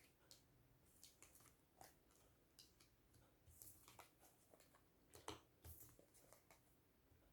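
Faint, scattered soft taps and rustles of tarot cards being drawn and laid down on a table, the clearest tap a little over five seconds in.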